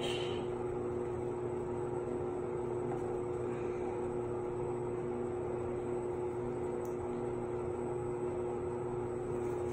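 A steady motor hum with a constant low tone and an even hiss, unchanging throughout.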